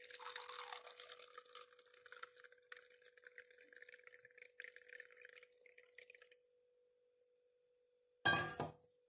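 Hibiscus juice poured from a steel bowl into a drinking glass, splashing and trickling for about six seconds, then stopping. A steady faint tone runs underneath, and a brief louder sound comes near the end.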